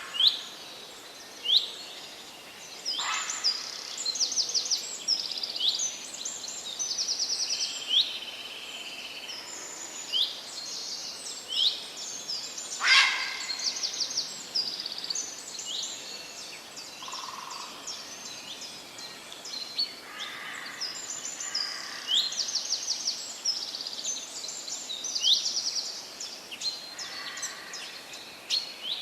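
Several songbirds singing and calling together: many short whistled notes that sweep in pitch, and quick high trills, over a faint steady hiss. Two louder, harsher sounds stand out, about three seconds in and near the middle.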